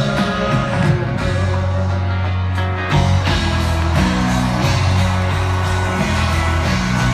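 A country band playing live through a stadium PA, with acoustic guitar and sustained bass notes, heard from far back in the crowd.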